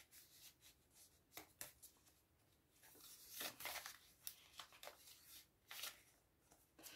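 Faint rustling and sliding of paper as the pages of a handmade paper journal are turned and its paper inserts handled, in a few short brushes with a longer rustle about three seconds in.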